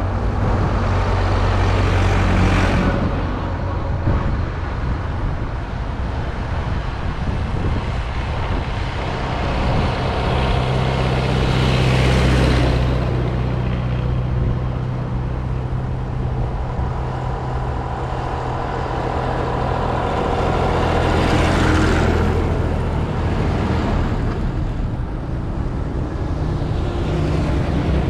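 Tractor diesel engines driving past one after another on a road, each swelling to a peak as it goes by and then fading, four pass-bys in all; the first is a green Fendt tractor.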